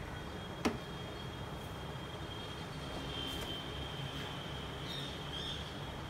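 Steady low background hum with a thin, steady high whine over it, and a single sharp click a little over half a second in.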